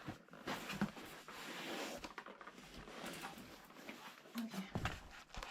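Rustling and handling of gift packaging and small items, with a few light knocks, and a brief low voice-like sound near the end.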